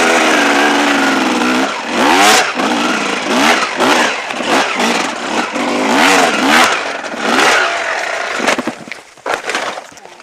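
Dirt bike engine held at steady high revs, then revved up and down over and over, about once a second, before dropping away near the end.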